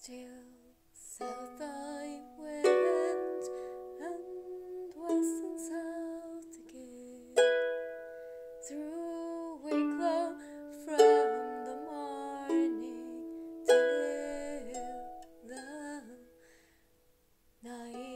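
Harp music: plucked notes ringing and fading in short melodic phrases, dying away near the end.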